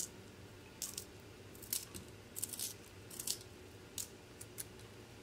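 Small handheld pencil sharpener shaving a white pencil as it is twisted against the blade: a string of short, dry scraping strokes at uneven intervals.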